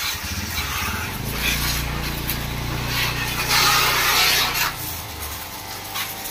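Thin high-pressure water jet from a small DC diaphragm pump sprayer hissing onto a scooter's exhaust and plastic bodywork, with the pump's electric motor humming steadily. The spray is loudest a little before the end, and the hum stops near the end.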